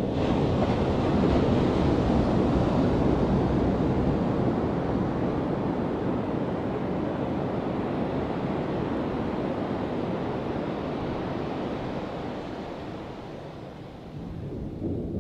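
Ocean surf: a wave breaks at the start, and its rushing wash rolls in and slowly dies away over about fourteen seconds. The next wave starts breaking near the end.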